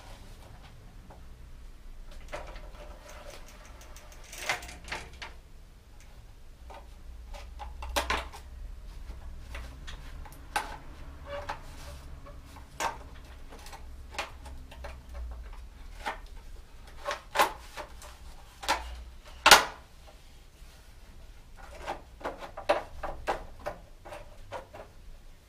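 Scattered metallic clicks and knocks of tools and parts being handled at a bicycle's rear wheel as it is fitted back into the frame. The loudest knock comes about twenty seconds in, and a quick run of clicks follows near the end.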